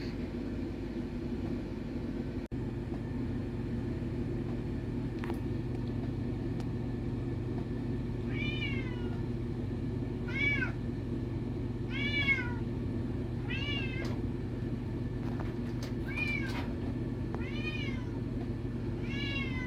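Tomcat meowing over and over, about seven drawn-out meows that each rise and then fall in pitch, starting about eight seconds in and coming every second and a half or so, as he asks to be let in. A steady low hum runs underneath.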